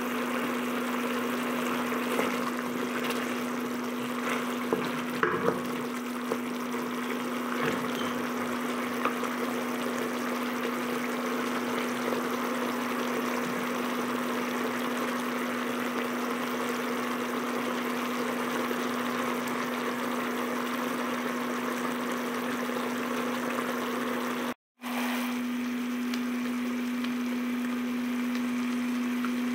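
Chicken adobo simmering in a nonstick wok, a steady hiss of bubbling sauce with a few small crackles in the first several seconds, over a constant steady hum. The sound drops out for a moment near the end.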